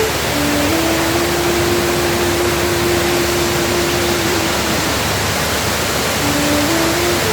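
Steady, loud rushing hiss of falling water, with a slow flute melody over it that holds one long note for a few seconds, then climbs again near the end.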